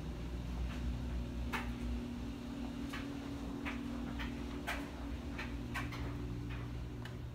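Footsteps of a person walking across a tile floor, sharp clicks about one to two a second, over a steady low hum.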